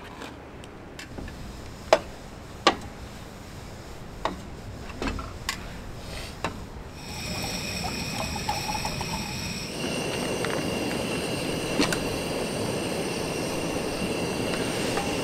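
Sharp clinks and taps of camping cookware being handled. About seven seconds in, water is poured from a glass bottle into a small metal kettle, then a steady hiss with a faint high whine carries on.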